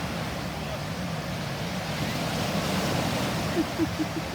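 Wind and water rushing past during a towed banana boat ride, over the steady low drone of the tow boat's engine. A run of about five short, high blips comes near the end.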